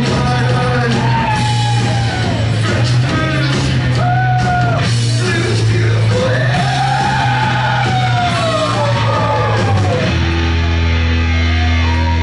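Live rock band playing loud in a club: a male singer wails and yells in long sliding lines over guitar, drums and a steady bass note, which drops to a lower note about ten seconds in.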